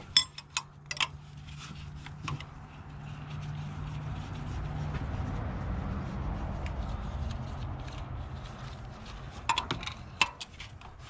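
Metal tools clinking and knocking against fuel-line fittings as they are loosened, in sharp clicks at the start and again near the end. A low rumble swells through the middle and fades away.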